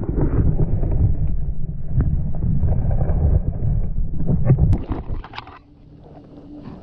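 Water sloshing and rumbling around an action camera held underwater in the shallows while a saratoga is let go, with a few sharp knocks. The noise drops away suddenly about five seconds in.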